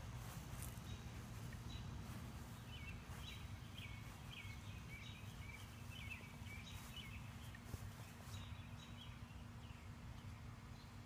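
Steady low outdoor rumble on the microphone, with a small bird twittering a rapid run of high chirps from about two and a half to seven and a half seconds in.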